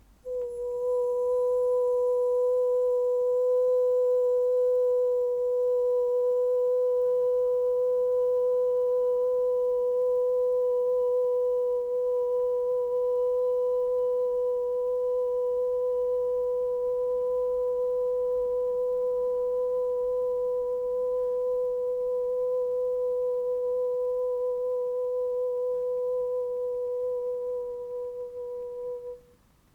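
A single steady, pure ringing tone from a sound-healing instrument, pitched near 500 Hz with a fainter octave above. It starts sharply, holds almost unchanged for nearly half a minute, and fades away just before the end.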